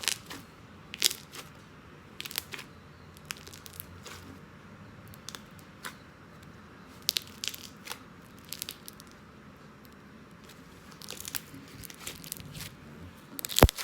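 Homemade floam slime being squeezed and folded by hand, giving off irregular sharp pops and clicks as trapped air bursts: the 'bubble pops' of a well-activated, stretchy slime. The loudest pop comes near the end.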